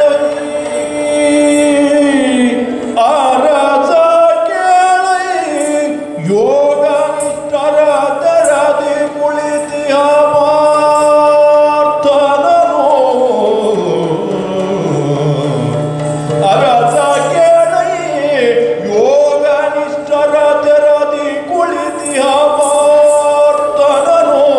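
Yakshagana singing: a male lead singer (bhagavata) sings a long-drawn melody with held notes and sliding pitch, with the accompaniment under it.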